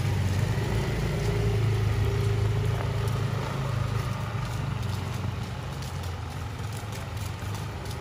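A vehicle engine idling steadily, a low hum that grows a little fainter toward the end.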